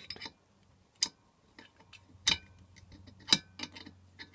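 Steel 12mm spanner clicking against the glow plug and the heater's aluminium burner casting as the plug is tightened. There are three sharp metallic clicks about a second apart, each ringing briefly, with fainter taps between them.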